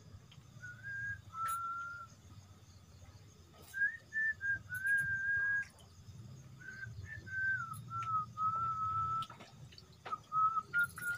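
A person whistling a tune: a clear single tone stepping between held notes in short phrases.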